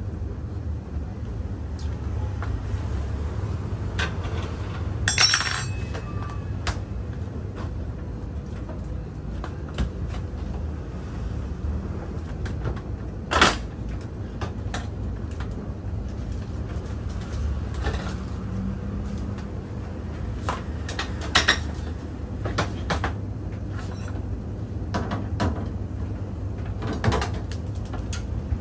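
Sheet-metal panels and parts of a commercial laundry dryer being handled: scattered clanks and knocks, a few sharp ones including a close pair, over a steady low hum.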